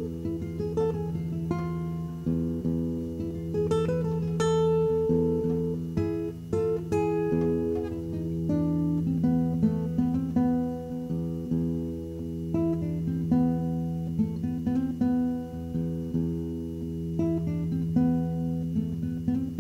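Background music: plucked guitar notes picking out a melody over a steady low drone.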